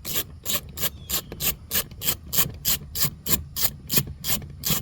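Hand ratchet working a bolt out of a car door panel, its pawl rasping on each back-swing at about four strokes a second.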